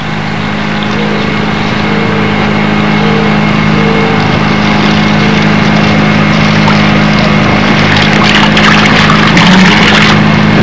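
A steady mechanical drone with a hiss over it, with scattered crackling noise in the last few seconds.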